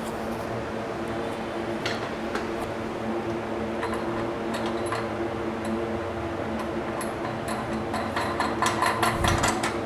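Small metallic clicks and clinks of a nut being threaded by hand onto a bolt on the bench's backrest bracket, turning into a quick run of louder rattling clicks near the end, over a steady hum.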